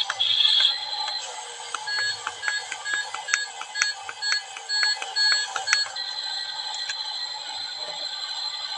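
Electronic beeping: short, evenly spaced high beeps, about two a second, starting about two seconds in and stopping about six seconds in, followed by a steady thin high tone. The sound is tinny, with no low end.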